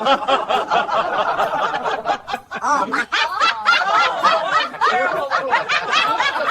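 A person laughing hard in a long run of high-pitched giggles, dipping briefly about two and a half seconds in.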